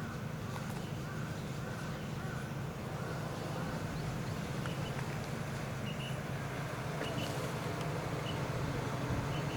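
Birds calling in short repeated notes over a steady low hum.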